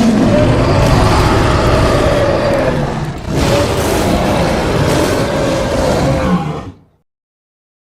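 Two long roars, one after the other, each about three seconds, with a rough rasp over a slowly sagging pitch: a stock animal-roar sound effect used as the voice of a cartoon demon cat.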